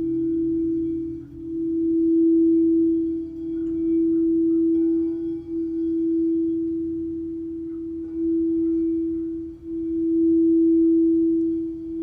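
Crystal singing bowl sounding one steady low tone with faint higher overtones. The tone swells and eases in waves every couple of seconds, dipping briefly in between.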